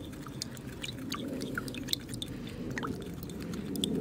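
White vinegar with red food colouring stirred with a stick in a small glass pot: scattered light ticks and small liquid sounds.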